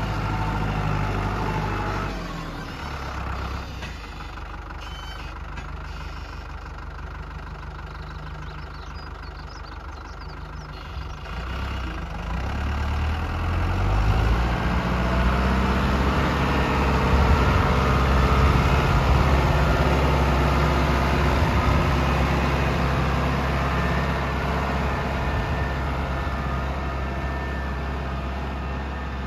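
Tractor diesel engine running while the tractor drives about. It is quieter for several seconds after the start, then revs up about twelve seconds in and runs loudest through the middle before easing off a little near the end.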